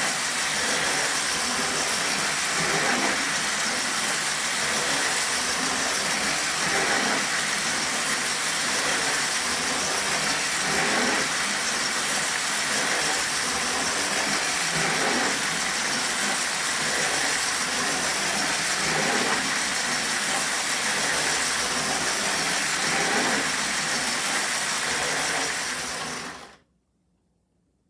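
Lionel No. 2065 4-6-4 toy steam locomotive and its train running steadily on O27 tinplate track: a constant motor and wheel noise that cuts off abruptly near the end.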